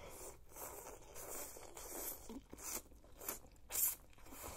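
Close-miked eating of noodles from a noodle soup: slurping and chewing, with several short sharp slurps, the loudest a little before the end.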